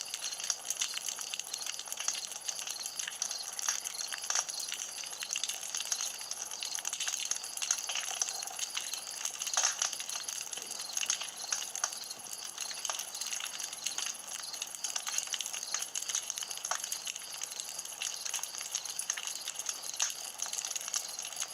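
Wood campfire crackling, with frequent small irregular pops and snaps over a steady high hiss.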